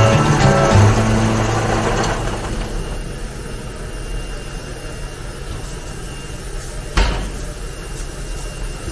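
Background music fades out over the first two seconds, leaving a low steady background. About seven seconds in there is a single sharp knock.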